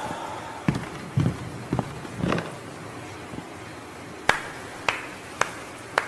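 A series of short taps and knocks: four duller, deeper knocks in the first couple of seconds, then four sharp clicks about half a second apart near the end.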